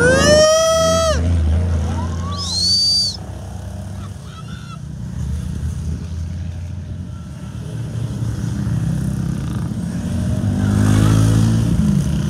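A procession of motorcycles approaches and passes, engines running. A horn blast sounds in the first second, the loudest sound here, and a short high-pitched beep follows around two to three seconds in. The engine sound swells with rising revs from about ten seconds as the bikes go by.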